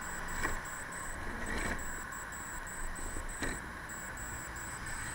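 Large plastic wheelie bin being handled by hand, knocking dully three times over a steady background hiss. A faint high-pitched tone pulses on and off throughout.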